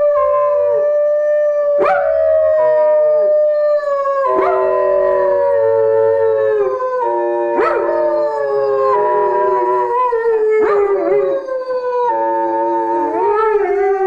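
German Shepherd dogs howling: long, held howls that slide slowly down in pitch, with two voices overlapping at times and short sharp rising cries breaking in every few seconds.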